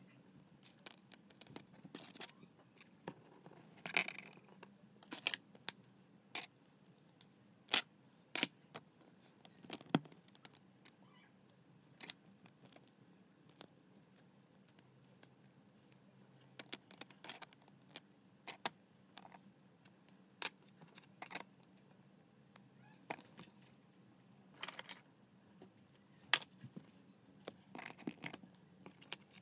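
Plastic LEGO bricks clicking and rattling as they are handled and pressed together: a scatter of sharp, irregular clicks over a faint steady hum.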